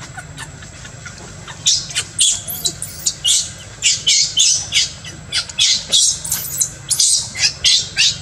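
Baby macaque screaming in a rapid series of short, high-pitched squeals, starting about a second and a half in, while an adult monkey grips it by the head.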